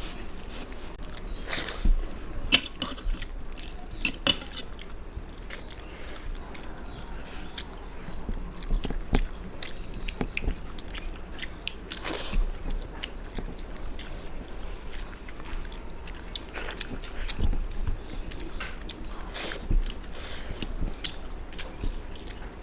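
Close-up eating sounds: chewing and smacking of rice and fish curry eaten by hand, with scattered clicks and a few sharper clinks of a plate.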